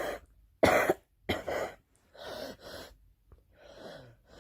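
A girl coughing: a couple of sharp coughs, then quieter gasping breaths.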